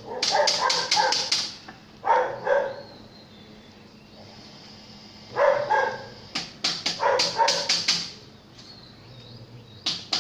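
Large dog barking in quick runs of several barks, with pauses of a second or two between the runs.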